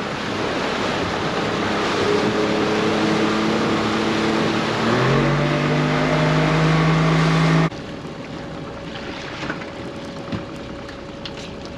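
Small boat's outboard motor running under way, with water and wind rushing past the hull; its note changes about five seconds in. Then, about two and a half seconds later, the noise drops off sharply as the throttle comes off, leaving a quieter steady hum and a few small knocks.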